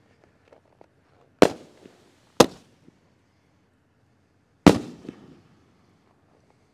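Dominator Fireworks Mammoth Peony, a 2.25-inch firework cake, firing its shots: three sharp bangs, the first two a second apart and the third about two seconds later, each followed by a short echoing tail.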